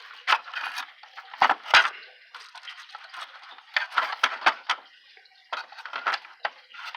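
Irregular clicks, knocks and scraping as hands work the drive belt and parts of a Hoover self-propelled upright vacuum cleaner, with a cluster of sharp knocks around the middle.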